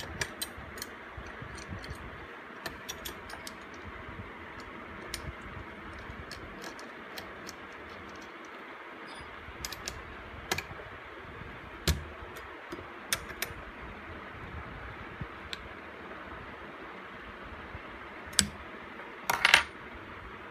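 Small metal parts clicking and clinking as a hinge part is handled and seated in a metal gauging fixture, over a steady hiss. The clicks come irregularly, with one sharp knock about halfway through and a louder rattle of clicks near the end.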